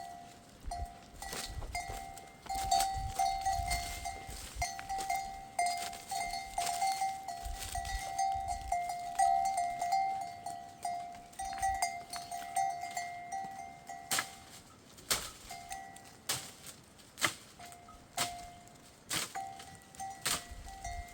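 Bells on a grazing flock of sheep and goats ringing and clanking: a steady ringing tone that drops out for a moment about 14 seconds in, with sharp knocks scattered throughout.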